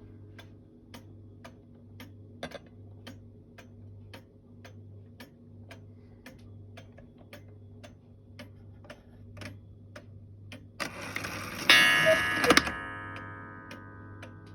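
Antique Black Forest cuckoo clock ticking steadily, about two and a half ticks a second. About eleven seconds in the strike mechanism whirs into motion, and a loud struck note rings out and fades away over the next two seconds.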